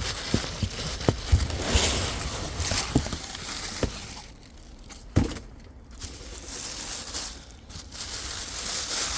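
Packaging around newly delivered potted trees being handled, crinkling and crackling with many small crackles. A single knock comes about five seconds in.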